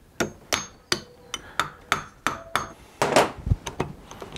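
Small hammer tapping steel keys into the keyways of a Warn 8274 winch's brake disc and shaft: about three light, slightly ringing metal taps a second. About three seconds in, a louder clatter and a low thump.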